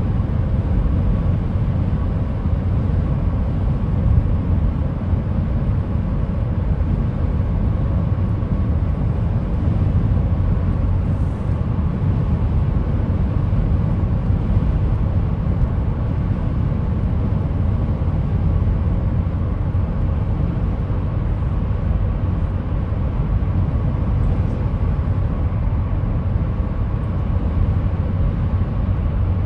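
Steady road noise inside a car's cabin at freeway speed: a low rumble of tyres and engine, with a faint even hum above it.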